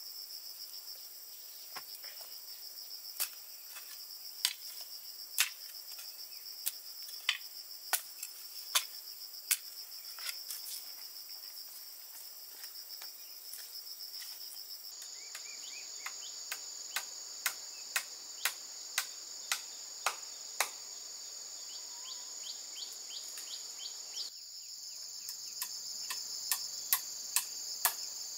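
A steady, high-pitched chorus of crickets and other insects. It is broken by runs of sharp knocks, about one or two a second, which are the loudest sounds.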